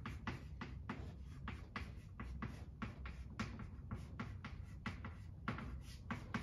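Chalk writing on a blackboard: quick, irregular taps and short strokes of the chalk, several a second.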